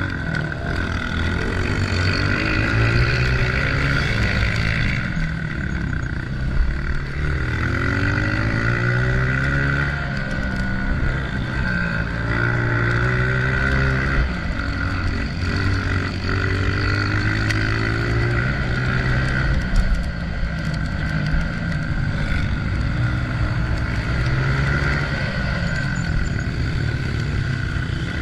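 Honda CRF125F's single-cylinder four-stroke engine being ridden hard, revving up and dropping back over and over as the throttle is opened and closed.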